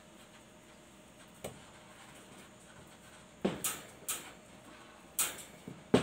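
A handful of sharp knocks and taps on a wooden tabletop as a rolling pin and dough are handled, spaced irregularly, with the loudest knock at the very end.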